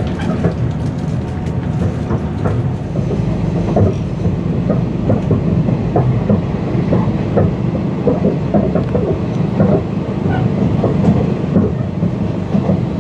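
Passenger train running on the rails, heard from inside the carriage: a steady low rumble with frequent irregular clicks and knocks from the wheels and carriage.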